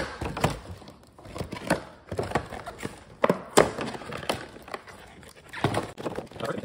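Stiff plastic-and-cardboard toy packaging being pried and twisted by hand: irregular clicks, crackles and knocks as the clear plastic shell flexes against a toy car held fast inside.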